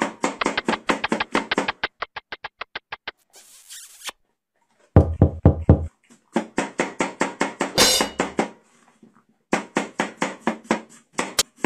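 A meat cleaver chopping food rapidly on a wooden cutting board, about six strokes a second, in several quick runs with short pauses between them.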